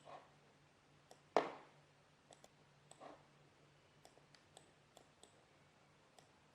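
Scattered light clicks and taps, with a louder knock about a second and a half in.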